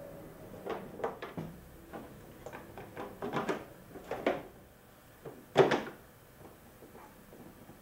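Plastic parts of a BMW R1200RT motorcycle handled by gloved hands: a string of irregular knocks and clatters, with one sharper knock about two-thirds of the way through.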